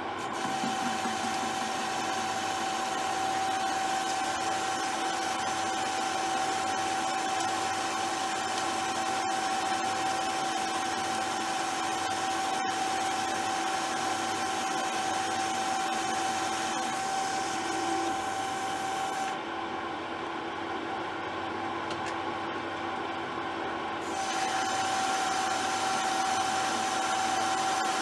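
Metal lathe taking a dry turning cut on a mild steel workpiece: a steady whine with a hissing cutting noise. About two thirds of the way in, the hiss and whine drop away for about five seconds, then the cut resumes.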